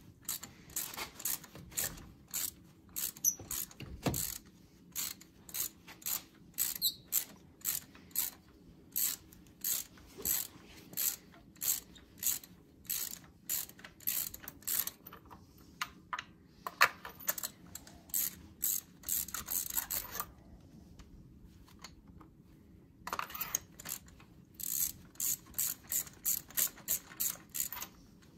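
A ratchet on an extension and spark plug socket clicking through repeated short strokes as it turns a spark plug in the cylinder head, about two strokes a second. The clicking goes quiet for a few seconds about two-thirds of the way through, then resumes.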